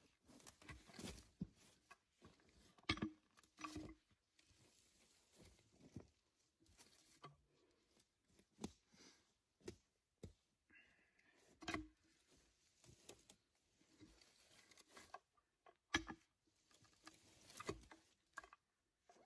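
Faint scattered knocks, scrapes and rustles of a peavey being worked against a felled log in dry leaves and brush. The sharpest knocks come about three seconds in, midway and about three seconds before the end.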